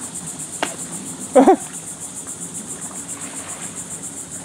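Insects chirping in a steady, rapid pulsing trill. A sharp click sounds a little over half a second in, and a short, loud vocal sound cuts in about a second and a half in.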